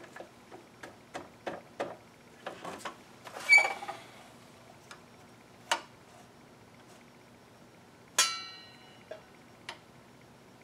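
Clicks and light knocks from a miter saw being adjusted to a new cutting angle, its motor not running. Two ringing metal clanks stand out, one about three and a half seconds in (the loudest) and one with a longer ring about eight seconds in.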